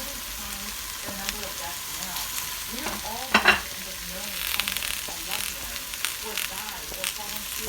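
Food frying and sizzling in a skillet with a steady hiss. There is one short louder sound about three and a half seconds in.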